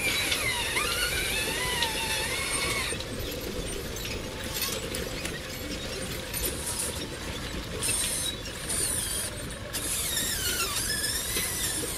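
Radio-controlled Volvo model excavator's motors whining and squealing as the machine works. The pitch glides up and down for the first few seconds and again near the end, with bursts of high hiss and mechanical clicking in between.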